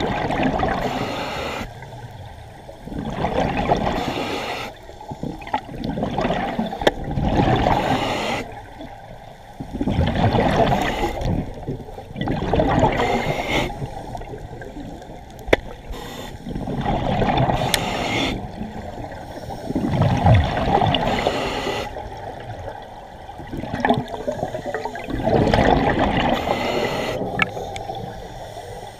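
Scuba diver's regulator breathing underwater: bubbly, gurgling exhalations about every three to four seconds, with quieter inhalations between them.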